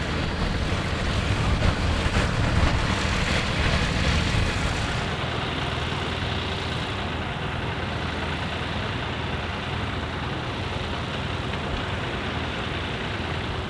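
Deutz F3L514/51 tractor's air-cooled three-cylinder diesel engine running steadily. About five seconds in the sound turns duller as its higher part drops away.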